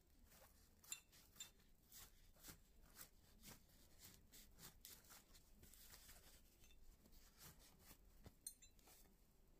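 Faint rubbing and handling of a cloth wiping a vintage Singer sewing machine's chrome-rimmed balance wheel, with light metallic clinks, the sharpest about a second in and near the end.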